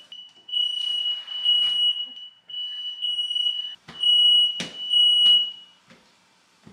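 Apartment smoke alarm sounding a steady high tone in long stretches broken by short gaps, set off by smoke from searing a steak. A dish towel being swung at it whooshes and snaps, loudest about four and a half seconds in, and the alarm stops near the end.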